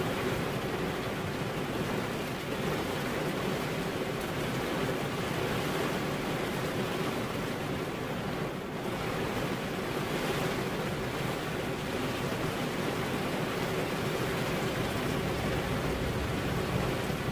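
Steady rain falling on a car's windscreen and body, heard from inside the car as an even hiss with a steady hum underneath.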